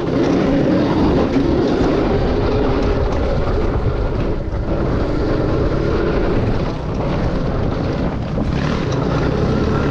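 Yamaha dirt bike engine running on the move under varying throttle, with wind on the microphone; the engine eases off briefly about two-thirds of the way through.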